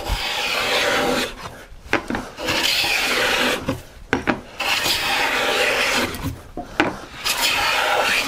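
A #7 jointer plane cutting along the edge of a white oak board. It makes four long hissing strokes, each over a second, taking full shavings, with light knocks between strokes as the plane is lifted and brought back. These are the jointing passes that bring the edge down to the marking gauge line.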